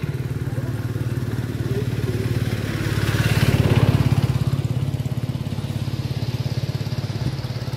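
A small engine running steadily with a fast, even pulse, growing louder about three to four seconds in and then easing back.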